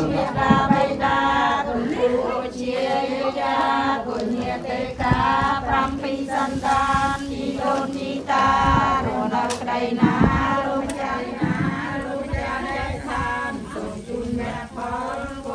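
Buddhist monks chanting together into a microphone, a steady continuous group chant held on a low drone.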